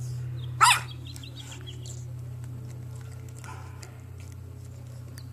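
A single short squeaky animal call, rising then falling in pitch, about half a second in, followed by a few faint chirps over a steady low hum.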